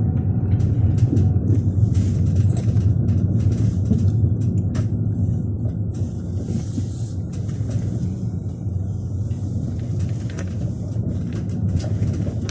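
Vehicle engine and road noise heard from inside the cab while driving: a steady low rumble.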